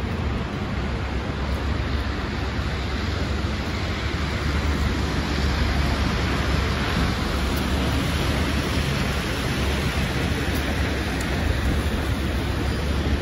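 Steady street traffic on a wet, slushy road: tyres hissing through slush as vehicles pass, over a low, even engine rumble.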